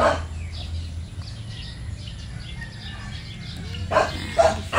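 Dog barking: a single bark at the start, then after a pause a couple of quick barks near the end.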